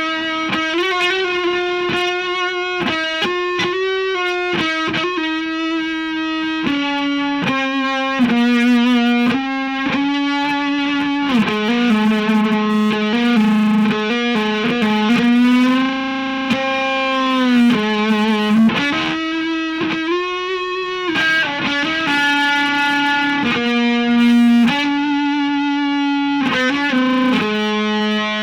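Electric guitar through distortion playing a slow single-note lead line: held notes, with string bends and vibrato, including a long bend up and back down about halfway through.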